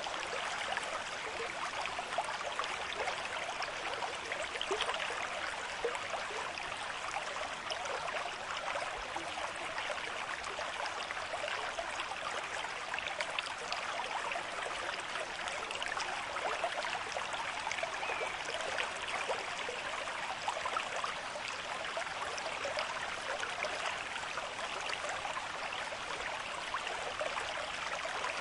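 Stream of moderate flow running over rocks: a steady rush of water with many small splashes and gurgles.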